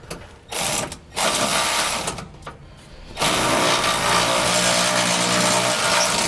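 Power ratchet spinning a 9/16 socket to run down and tighten the 3/8 bolts and lock nuts on a suspension bracket. It runs in three bursts: a short one about half a second in, one of about a second soon after, and a long steady run from about three seconds in.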